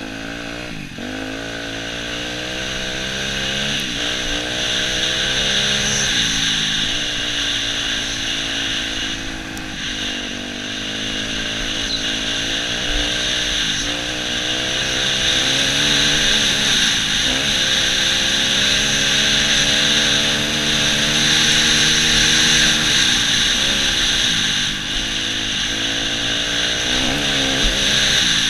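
Yamaha YZ250F dirt bike's four-stroke single-cylinder engine being ridden, revving up and easing off again and again through the gears, with a steady rush of wind over the helmet-camera microphone.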